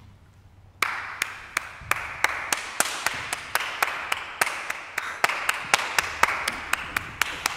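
A brief hush, then hand clapping from a few people starts about a second in: distinct sharp claps about three a second over a softer patter of other hands.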